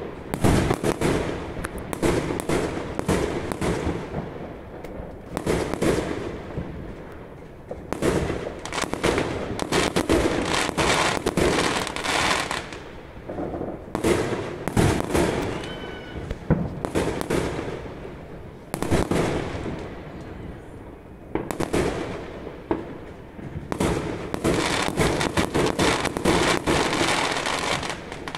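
Fireworks going off: aerial shells bursting with bangs and dense crackling, coming in clusters of several seconds with short lulls between.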